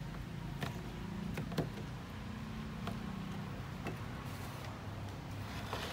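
Avocado halves and pits being handled: a few scattered light clicks and knocks over a low steady hum.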